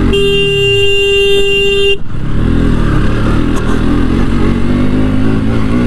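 One steady horn blast lasting about two seconds at the start, over the running single-cylinder engine of a KTM RC 200 motorcycle being ridden, with road and wind noise. The engine note rises slightly near the end.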